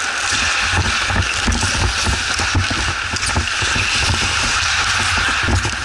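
Ice hockey play on the rink: a steady scraping hiss with frequent sharp clicks and knocks, over an uneven low rumble.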